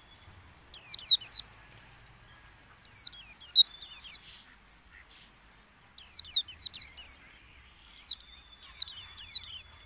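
A yellow white-eye (pleci) singing in four bursts of rapid, high, falling chirps, about two seconds apart, over a steady high hiss. This is a pleci lure song, used by keepers to stir caged white-eyes into singing.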